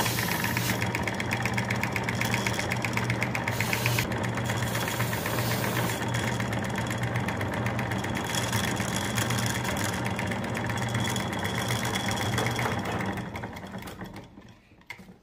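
A slow, belt-driven homemade wire-wheel grinder, built from an upside-down piston with a shaft, running with a steady hum while a forged steel piece is held against the spinning wire brush, scratching the forge scale off. The sound fades out near the end.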